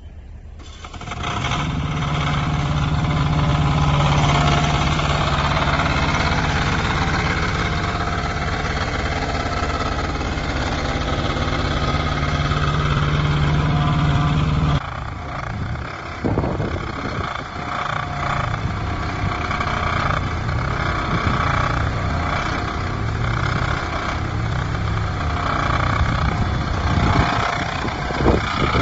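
Mini wheeled excavator's engine running, building up over the first second or two and then holding a steady drone. About fifteen seconds in, the sound changes suddenly to an uneven, varying engine noise.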